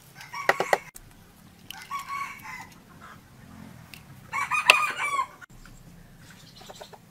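Chickens calling three times with short gaps between. The last and loudest call, about four seconds in, is a rooster crowing.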